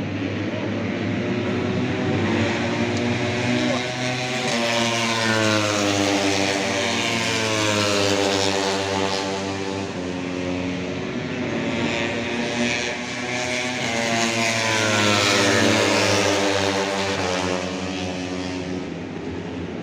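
Race engines running on a circuit during practice, their pitch repeatedly rising and falling as vehicles accelerate, shift and pass, over a steady low drone.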